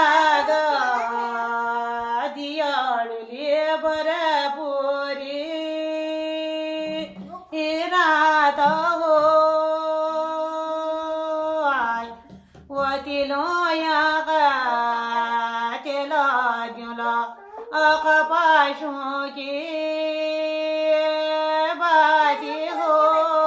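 A woman singing a Kumaoni jhoda, a devotional folk song praising the gods. She sings in phrases whose melody bends and then settles on long held notes, with short breaks about 7 and 12 seconds in.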